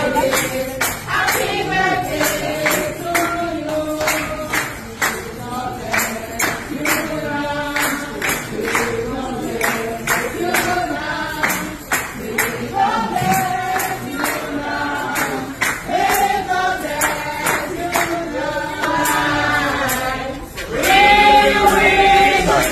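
A choir of voices singing over a steady percussion beat of about two sharp strokes a second; the singing grows louder near the end.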